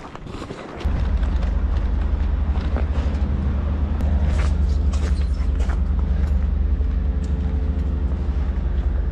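A loud, steady low rumble that starts suddenly about a second in, with a few faint clicks over it.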